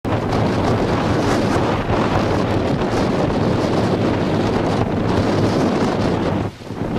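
Storm-force wind buffeting the microphone over heavy breaking surf, a loud steady roar that dips briefly near the end.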